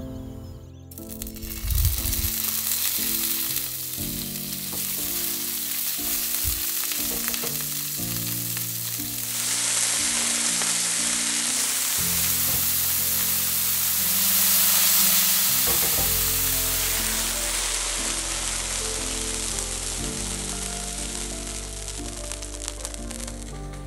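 Chunks of fish sizzling as they fry in hot olive oil in a non-stick pan. The sizzle starts suddenly about two seconds in and keeps going almost to the end.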